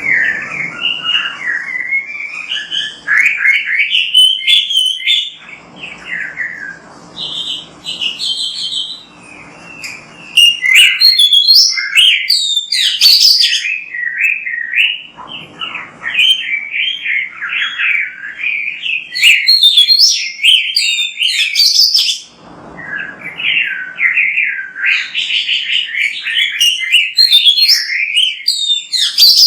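Oriental magpie-robin (kacer) singing a long, fast run of varied chirps and whistled phrases, with short breaks between phrases.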